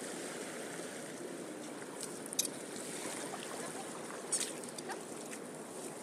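Steady wash of water and wind at the shoreline, with two brief sharp high sounds about two and a half and four and a half seconds in.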